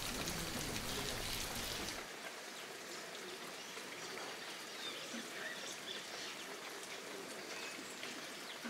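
Steady rain falling: a soft hiss with scattered pattering drops. About two seconds in it suddenly turns quieter and a low rumble underneath stops.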